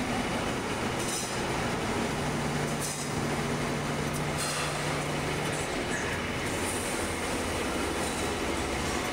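Steady metalworking machinery noise on a workshop floor, with a low hum that comes in about two seconds in and stops a few seconds later.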